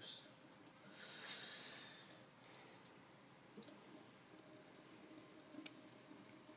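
Near silence: room tone with a soft hiss lasting about a second and a half from about a second in, and a few faint clicks.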